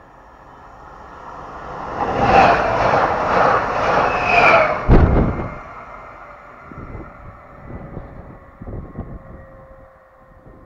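PKP Intercity passenger train passing close by at speed. Its noise builds, stays loud for about three seconds with a rhythmic clatter of wheels, and ends in one sharp bang. It then dies away with a few softer knocks and a faint steady tone.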